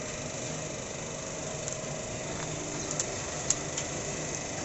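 Muri roasting machine running steadily as it turns out popcorn onto its sieve, with a few sharp ticks about three to four seconds in.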